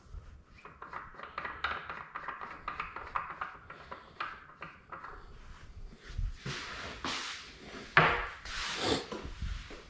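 Rubbing and quick light ticking as the frame slider under the bike is turned by hand, then clatter and knocks of a tool-chest drawer being opened and metal tools being rummaged, with one sharp clack about eight seconds in.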